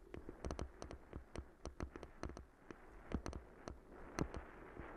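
Bicycle rattling and clacking as it rides over a rough, rutted dirt track: irregular sharp knocks, several a second, over a steady rushing noise.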